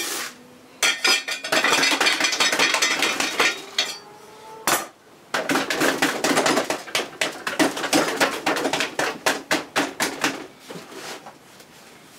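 Granular bonsai soil of akadama and pumice grains rattling against a stoneware pot as it is worked in. Two spells of rapid gritty clicking with a pause of about two seconds between; the second spell is quick separate taps that thin out near the end.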